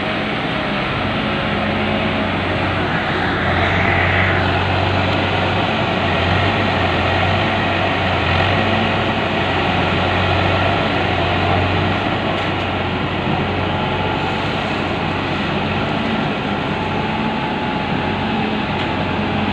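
Kaiser S2 spider excavator's diesel engine running steadily under load while its hydraulics work the boom and swing the upper body, the low hum swelling from about three and a half seconds in and easing off after about twelve seconds.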